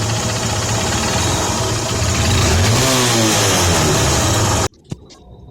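Hero Honda CBZ Xtreme's single-cylinder four-stroke engine running at idle, given one short blip of throttle midway that rises and falls back. The engine sound cuts off abruptly near the end, leaving only a few faint clicks.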